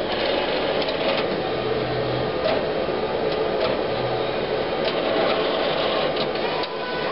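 HP DesignJet 1050c plotter's carriage mechanism running as the printhead carriage is driven over to its access position: a steady mechanical whirr with a few short clicks.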